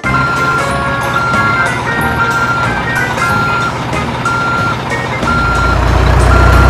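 A truck's reversing alarm beeping steadily about once a second, each beep a short single tone, over a low engine rumble that swells about five seconds in.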